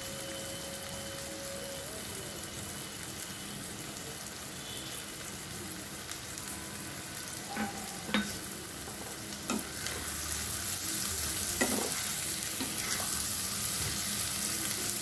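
Spiced masala and rice sizzling in oil in a kadai, with a spatula knocking and scraping against the pan a few times in the second half. The sizzle grows a little louder about two-thirds of the way through.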